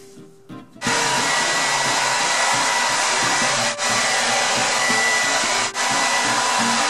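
Quiet music, then a handheld hair dryer switched on about a second in, blowing steadily with a faint whine and dipping briefly twice.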